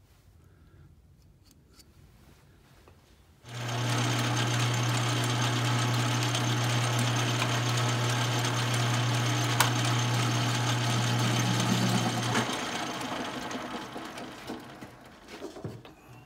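Small benchtop metal lathe switched on: its motor starts suddenly and runs with a steady hum and whir. It is switched off and the chuck spins down, fading out over a few seconds.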